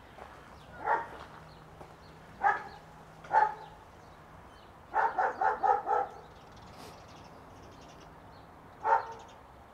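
A dog barking in bouts: single barks, then a quick run of five or six barks in the middle, then one more bark near the end. The dog is going a bit mental.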